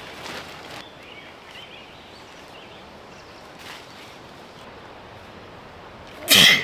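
Quiet outdoor background with a few soft steps, then one short, loud bang near the end.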